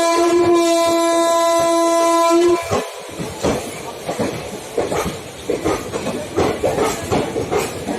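Train horn holding one steady note, cutting off about two and a half seconds in. Then ICF passenger coaches' wheels clatter over the rail joints in an uneven run of clacks.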